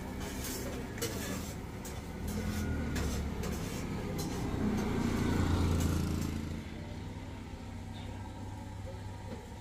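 A motor vehicle driving past on the road: a low engine rumble that builds to its loudest about five to six seconds in, then fades away.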